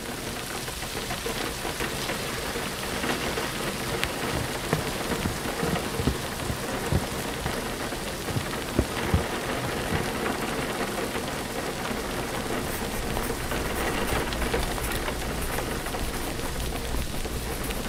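Steady rain falling, a dense even hiss with scattered louder drops tapping in the first half.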